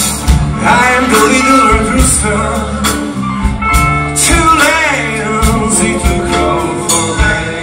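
Live blues-rock band playing a slow blues: a male voice singing over electric guitars and a steady drum beat.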